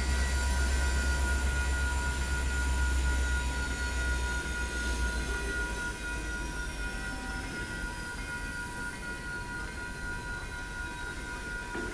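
A ballast work train's cars rolling past on the rails. There is a heavy low rumble that eases off about halfway, with steady high-pitched tones running through it.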